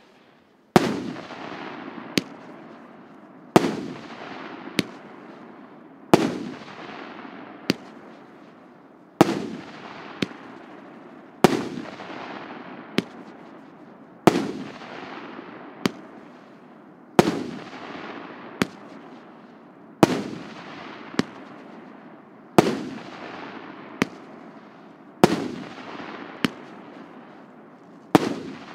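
A 100-shot, 1.5-inch fireworks cake (РС9530 'КПСС') firing shot after shot: a steady run of sharp bangs about every second and a half, each trailing off in a fading hiss before the next.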